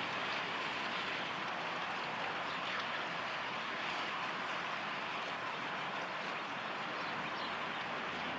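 Steady outdoor background noise at a lakeshore: an even hiss with no distinct events.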